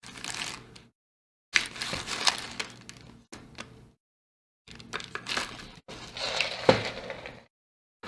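Rummaging through a box of small spare electronic parts: handling noise of rustling and clicking in irregular bursts, with a sharp click about two-thirds of the way in.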